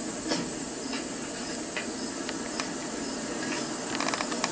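Steady hiss of background noise, with a few faint scattered clicks and a quick run of clicks about four seconds in.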